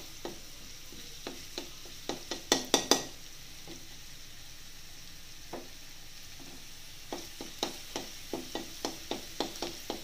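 A flat steel spatula scraping and knocking against a metal kadai as amaranth greens are stirred, over a steady sizzle of garlic frying in oil. The loudest scrapes come in a quick cluster about two and a half seconds in, then only the sizzle for a few seconds, then stirring strokes resume about twice a second near the end.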